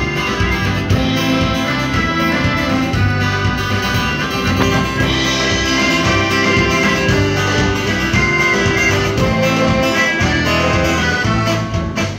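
Live band playing an instrumental passage with electric and acoustic guitars and drums.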